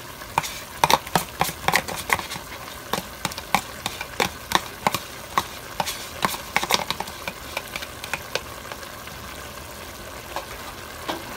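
Sour cream being emptied from a plastic tub into a stainless steel pot of beef and mushrooms: a run of irregular sharp clicks and taps that thins out near the end, over a faint steady sizzle from the pot on medium heat.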